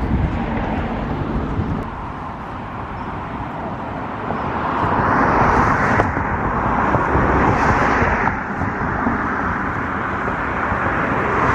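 Outdoor background noise: a constant low rumble, with a rushing swell lasting about four seconds in the middle.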